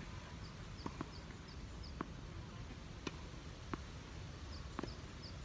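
Tennis rally: sharp pops of the ball off rackets and the court, about one a second. A bird chirps in two quick runs of short high notes, early on and near the end.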